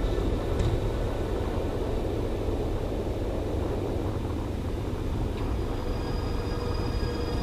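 Steady low rumble of an indoor soccer hall's background noise, with a sharp knock about half a second in and another just past five seconds, typical of the ball being kicked during play.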